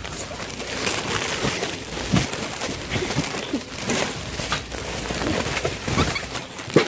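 Plastic wrapping of paper towel packs crinkling and rustling, mixed with phone handling noise and scattered knocks as the packs are pushed about, with one sharper knock near the end.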